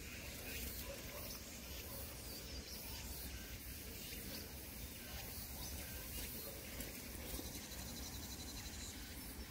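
Outdoor background noise: a steady low rumble with a faint hiss over it, and no distinct event standing out.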